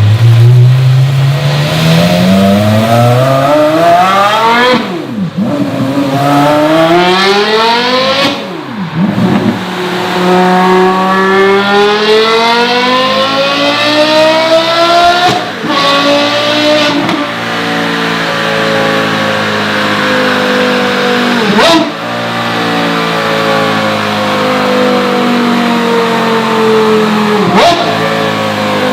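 Porsche Carrera GT's 5.7-litre V10 with a JCR Developments exhaust, on a dynamometer, accelerating hard up through three gears with short breaks at the shifts. Its revs then fall slowly as it winds down, with a few sharp cracks from the exhaust.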